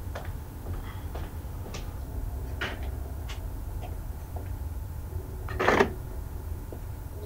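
Household handling sounds: scattered light knocks and clicks, with one louder scraping, rustling noise about five and a half seconds in, over a steady low rumble.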